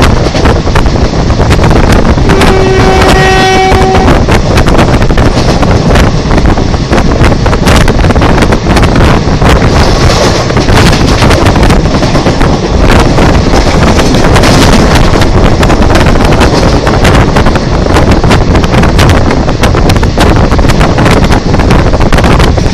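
WAP-4 electric locomotive's horn sounding one blast of about a second and a half, a couple of seconds in. Throughout, the express train runs past close by with a loud, continuous rumble and clatter of wheels on the rails, with wind buffeting the microphone.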